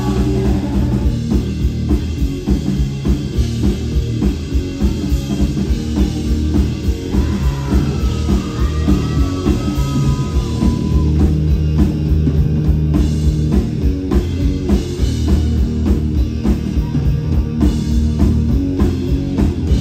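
Live rock band playing an instrumental passage: electric guitar, bass guitar and a drum kit keeping a steady, driving beat, loud and without vocals.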